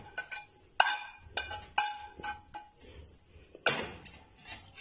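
Wooden spatula scraping and knocking cooked chicken out of a metal pan onto a plate: a string of sharp knocks and clinks, several ringing briefly, the loudest near the end.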